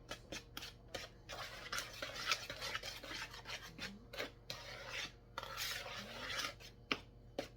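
A spoon stirring dry pancake ingredients (flour, baking powder, baking soda, salt and sugar) in a mixing bowl: a run of gritty scrapes, with light clicks of the spoon against the bowl.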